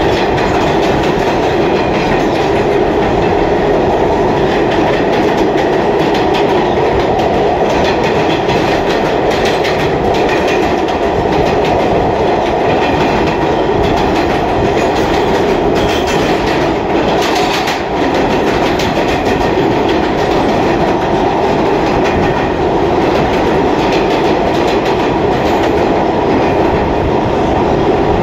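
Interior of a New York City Subway R160A car running on the express track: a steady loud rumble of steel wheels on rail, with a few sharper clicks near the middle.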